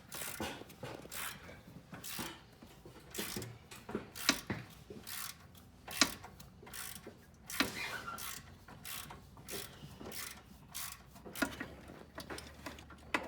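Hand ratchet clicking in short runs as bolts are worked on an engine's top end, with a few sharper metallic clinks of tools and parts.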